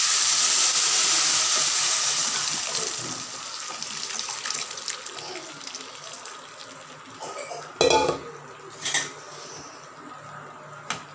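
Sambar poured onto hot tempering oil in an aluminium kadai: a loud sizzle bursts up the instant it hits the oil and dies away over several seconds into a gentle bubbling. Near the end, a couple of metal clanks against the pan.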